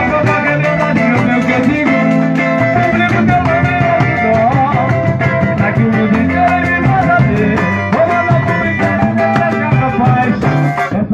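Live samba played on acoustic guitars with a steady strummed rhythm and singing.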